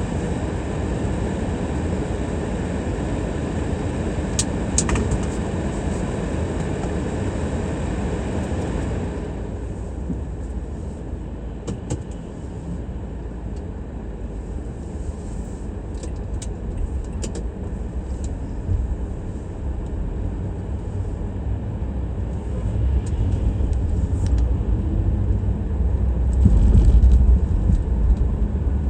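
Car driving on city streets: steady engine and tyre rumble with road hiss. The hiss eases about nine seconds in, and the low rumble grows louder near the end.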